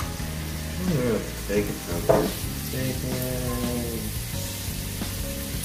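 Slices of pork and beef sizzling steadily on an electric tabletop grill plate.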